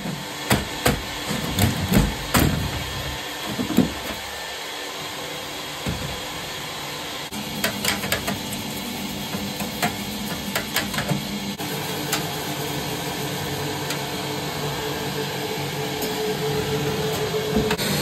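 Shop vacuum running, its hose sucking heavy soot and scale out of a badly sooted oil boiler's heat exchanger. Clusters of sharp knocks and rattles come from the nozzle and debris striking the metal, bunched in the first few seconds and again around the middle.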